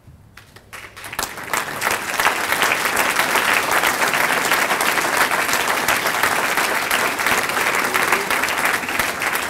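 Audience applauding: a few scattered claps in the first second swell into full, steady applause by about two seconds in.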